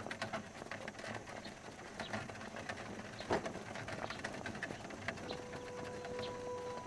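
Outdoor scene ambience of scattered bird chirps, with light footsteps and knocks and one sharper knock about three seconds in. A steady held musical note comes in about five seconds in.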